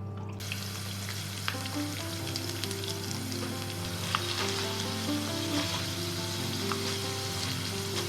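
Food sizzling in a hot pan, the sizzle starting about half a second in, with occasional sharp clicks of a utensil stirring. Soft background music plays underneath.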